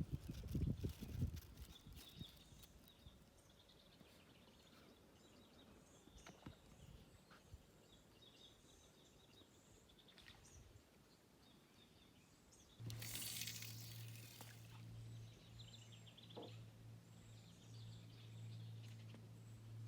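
Quiet outdoor ambience with faint, scattered bird chirps. About two thirds of the way through, a brief rustle comes in and a steady low hum sets in.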